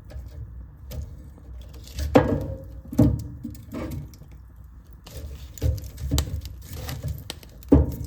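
Wood fire crackling in a fireplace: irregular sharp pops and snaps, the loudest about two and three seconds in and again near the end, over a low steady rumble of the flames.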